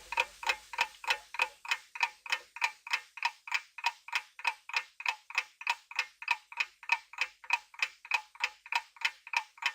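Clock-tick sound effect ticking steadily, about three ticks a second: a quiz countdown timer running while the viewer works out the answer.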